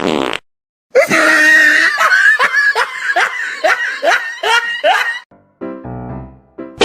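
A person laughing in a run of short rising 'ha' sounds, about two a second, over music.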